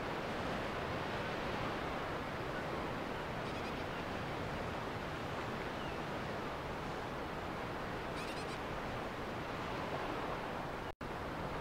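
Steady wash of surf and wind on a shoreline, with a few faint high chirps. The sound cuts out completely for an instant near the end.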